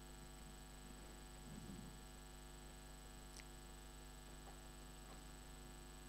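Near silence with a steady electrical mains hum.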